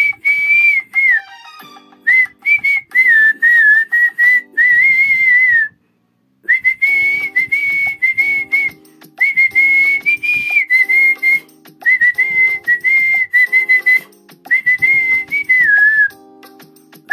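A man whistling a Kannada film song melody through pursed lips. It is one clear high tune in phrases with small pitch bends, breaking off briefly about six seconds in.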